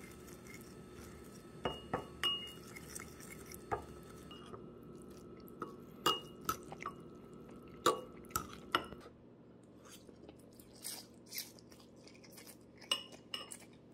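Metal fork clinking and scraping against a ceramic bowl while mixing noodles with their seasoning sauce, with sharp irregular clinks through the first nine seconds or so. Near the end, fewer and softer clinks while the noodles are eaten.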